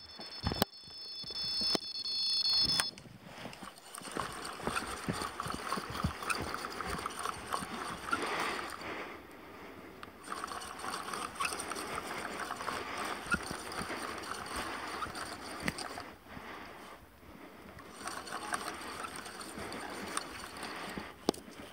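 An electronic fishing bite alarm gives a steady high tone for the first three seconds, then cuts off suddenly. After that comes irregular water sloshing and splashing.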